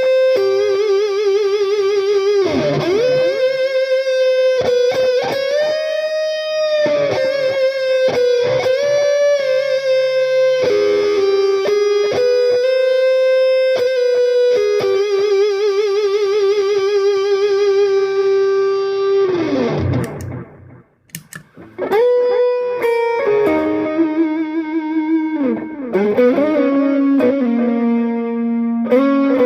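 Electric guitar played through a mini effects pedalboard: sustained single-note lines with a wavering vibrato, bends and slides. Twice the pitch dives steeply downward, and the second dive, about two-thirds through, is followed by a short near-silent break before lower notes resume.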